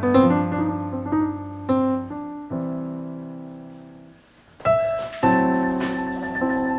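Background piano music: slow chords struck and left to ring and fade, with a brief lull about four seconds in before the next chord.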